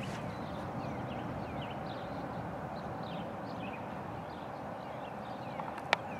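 Outdoor ambience: small birds chirping again and again over a steady background rush, with one sharp click near the end.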